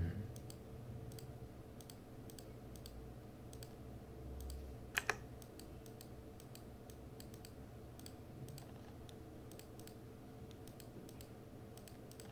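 Scattered light clicks of a computer mouse and keyboard while settings are entered, with two louder clicks about five seconds in, over a faint steady low hum.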